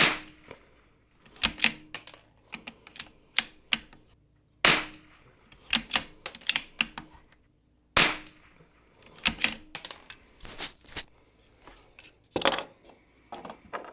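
Savage Mark II bolt-action .22LR rifle fired four times, a few seconds apart, with the smaller clicks of the bolt being worked to chamber the next round between shots.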